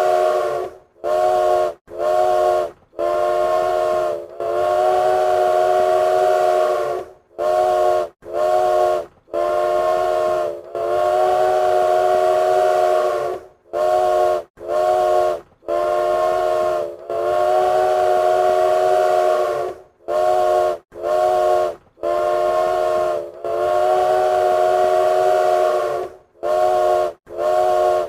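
Train whistle sounding a chord of several pitches in a repeating pattern of short toots and long held blasts, each cut off sharply.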